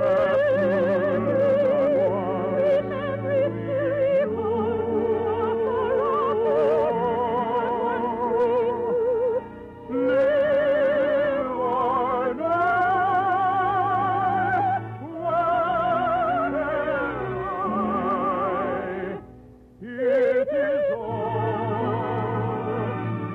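Operetta singing: a high voice singing with wide vibrato over orchestral accompaniment, in long held phrases broken by two short breaths, one about midway and one near the end.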